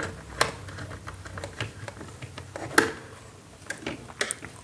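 Scattered small clicks and scrapes of a screwdriver working the terminal screw of a two-pole isolator, clamping a wire in place. The sharpest clicks come just after the start and just before the three-second mark.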